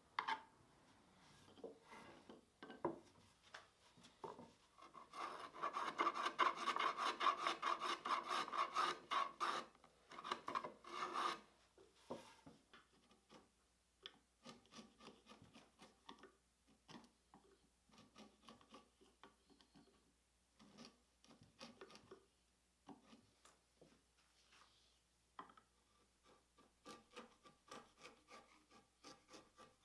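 Quick back-and-forth strokes of a hand tool rubbing on oak boards, like hand sanding or rasping. A dense, loudest run of strokes lasts about six seconds in the first half, followed by slower, scattered strokes.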